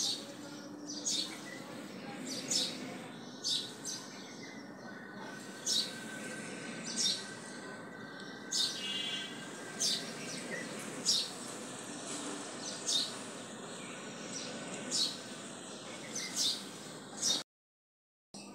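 A small bird chirping over and over, one short sharp chirp about every second, over a steady low background hum. All sound drops out briefly near the end.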